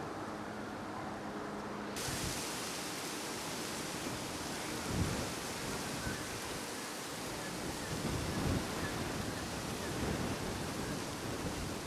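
Wind blowing over the microphone, a steady rushing hiss with low gusting rumbles, which cuts in abruptly about two seconds in over a fainter steady hum.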